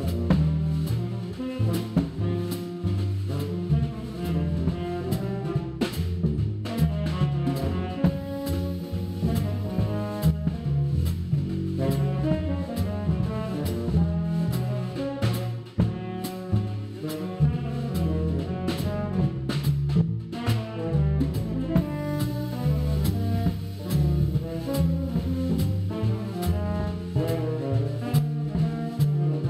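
Background jazz music with a steady beat.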